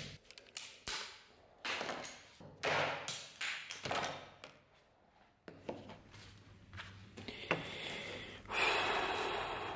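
A beech handle blank being pried and split off a dagger's steel tang with a knife blade: a series of sharp cracks and snaps through the first four seconds. A longer scraping rub follows near the end as the parts are handled.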